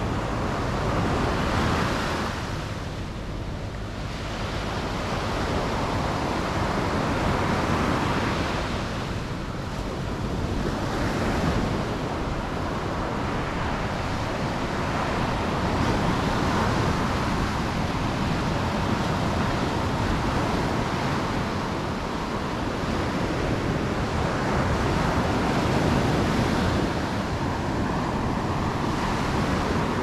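Small sea waves breaking and washing up a sandy beach: a continuous rush of surf that swells and eases every several seconds as each wave comes in.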